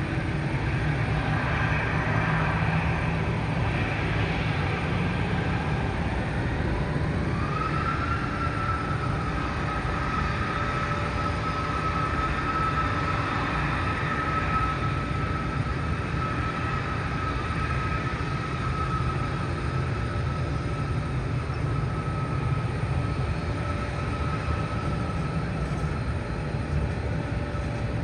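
Airbus A320's twin jet engines at taxi power: a steady low rumble and hiss with a whine that rises about seven seconds in and then holds steady.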